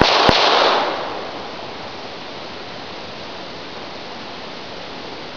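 Dying tail of a .22lr pistol shot from a USFA ZiP, with one sharp click about a third of a second in. The tail fades within the first second into a steady hiss.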